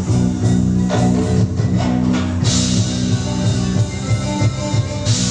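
Instrumental performance music with sustained notes over a steady low rhythmic beat.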